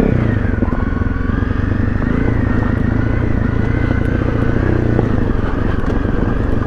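Honda CRF250 Rally's single-cylinder engine running steadily while riding, its pitch dipping slightly at the start and then holding even.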